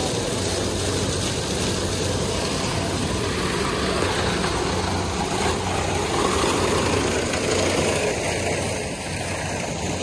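Kubota DC-70 Plus combine harvester running steadily while harvesting corn: a constant diesel engine drone under the noise of its cutting and threshing machinery.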